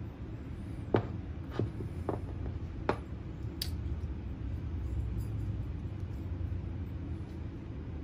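Small clicks and taps from the split halves and gears of a Traxxas TRX-4 two-speed transmission being handled: four within about two seconds, then one sharper click a little later, over a steady low hum.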